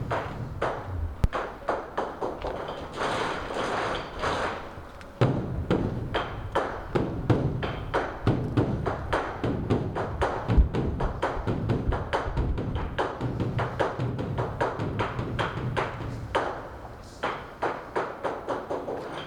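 Beopgo, the large Korean Buddhist dharma drum, being beaten with two sticks in a rapid, continuous rhythm of several strokes a second, with deep booming hits mixed among lighter taps. This drumming is the call to evening worship.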